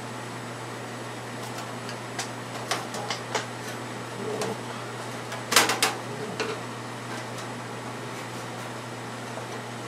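Light clicks and taps of a screwdriver and small screws being handled against the aluminium wing rib and light housing, a few scattered clicks, then a tight cluster of sharper clicks about five and a half seconds in. A steady low hum runs underneath.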